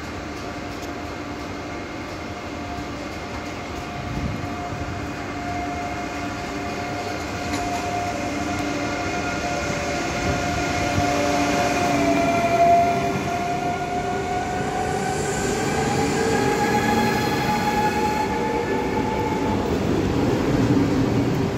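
SNCF Z 24500 double-deck electric multiple unit (TER 2N NG) arriving at a platform, growing steadily louder as it comes in. It gives a whining set of tones that rise in pitch over the second half.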